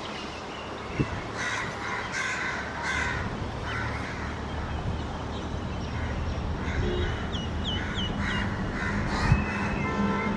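Crows cawing repeatedly over the steady low rumble of a WAG-7 electric locomotive and its container freight train approaching slowly.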